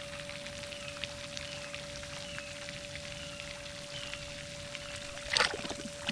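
Water trickling and lapping around a Vizsla wading in a pond, with a louder splash about five and a half seconds in as she dips her head to the water.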